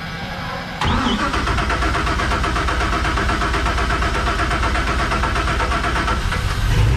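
Crusader marine V8 inboard engine cranked over on its starter, beginning suddenly about a second in and running with a fast, even pulsing, with a louder surge near the end. It is not yet running smoothly: there is still air in the fuel after the injector and fuel-rail work.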